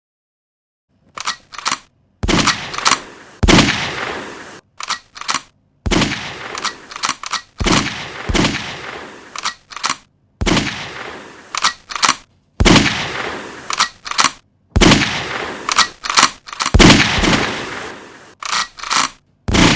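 Gunshot sound effects: sharp shots fired in quick clusters of two to four, the loudest ones followed by a long fading echo, with short pauses between the groups.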